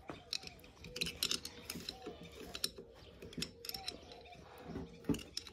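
Light metallic clicks and knocks of tractor PTO clutch parts being handled and set down during disassembly, with a louder knock near the end.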